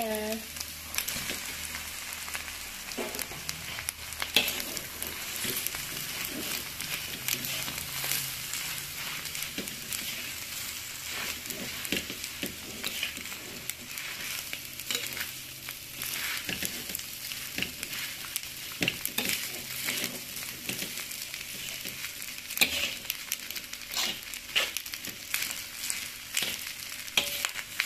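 Fried rice sizzling steadily in oil in a hot pan while a spatula stirs and turns it, with frequent scrapes and knocks of the spatula against the pan.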